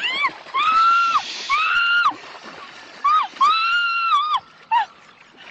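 A woman's high-pitched shrieks, about six in two runs with a pause of nearly a second between, in excitement at a fish splashing at the surface in front of her.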